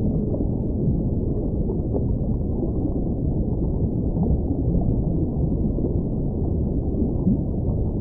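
Steady low rumble of an underwater whale-sound recording. A held whale moan ends just after the start, and a few faint short calls slide in pitch over the rumble.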